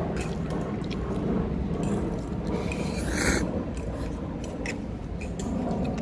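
Cutlery and dishes at a meal: scattered light clicks and a short scrape about three seconds in, over a low steady rumble.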